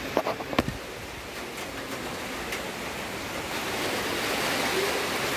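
Heavy rain falling steadily, with a few sharp taps about half a second in; the rain grows louder toward the end.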